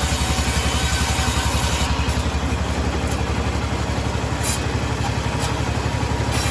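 A sawmill's engine running steadily with an even, rapid pulse. About two seconds in, the high hiss above it thins out until near the end.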